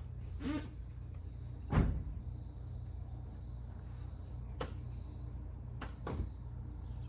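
Steady low rumble with a few knocks from the Ford F-150 pickup setting up a log-chain stump pull: a short creak about half a second in, a heavy thud just before two seconds, then sharp knocks near the end.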